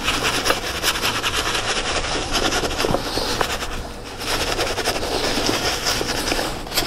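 Bristle brush scrubbing a white leather sneaker with soap lather in fast, rhythmic back-and-forth strokes, with a brief pause about four seconds in.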